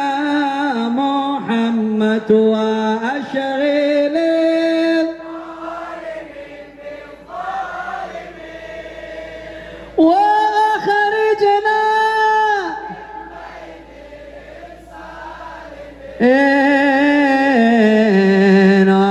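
Islamic devotional chanting: a man's voice sings long, held melodic phrases through a loudspeaker system, with quieter stretches between the phrases where many voices sing along.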